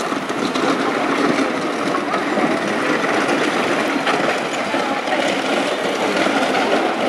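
A loaded hand cart rolling over a gravel path, with a steady rumble and crackle of its wheels on the gravel.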